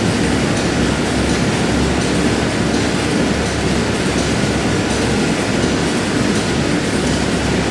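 Factory ambience: industrial machinery running with a steady, loud mechanical din over a low hum.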